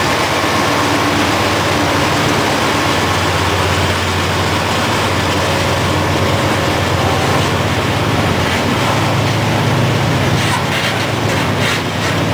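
Freight train's coal hopper cars rolling past: a steady rumble of steel wheels on rail, with a few sharp clicks near the end.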